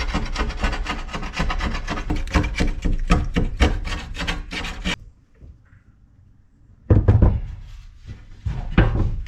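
Rapid back-and-forth scrubbing strokes cleaning a scratched tempered glass windshield panel, stopping about five seconds in. After a short pause, louder rubbing and handling noise.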